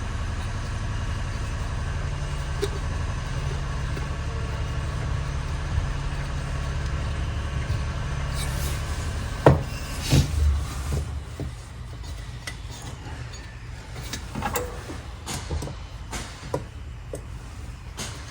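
A steady low rumble that drops away about eleven seconds in, with sharp knocks and clicks of metal parts being handled and fitted in the second half, the loudest knock about nine seconds in.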